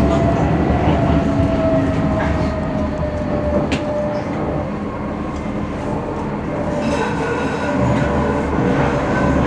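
Docklands Light Railway train running along the track, heard from on board, with a steady rumble. A motor whine slowly falls in pitch over the first few seconds, there is a single click near the middle, and higher whining tones come in about seven seconds in.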